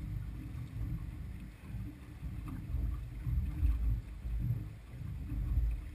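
Uneven low rumble of wind on the microphone and choppy water against a small boat's hull.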